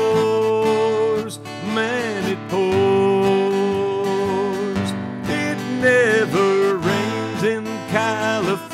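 A man singing long held notes and then shorter wavering phrases, with a strummed acoustic guitar.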